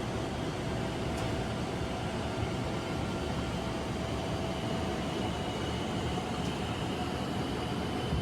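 Steady rushing noise on the flight deck of a Boeing 787-9 climbing after takeoff: airflow, engine hum and air-conditioning blended into one even roar, with a faint steady whine.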